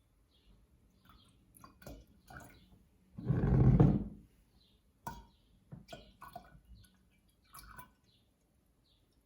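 Oat milk poured into a jar, heard as one short, loud splash about three seconds in, with light knocks and clinks of the containers around it.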